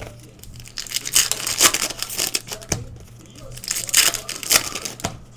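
Trading-card pack wrappers crinkling and tearing as packs are ripped open, in several rustling bursts, the loudest about a second in and again about four seconds in.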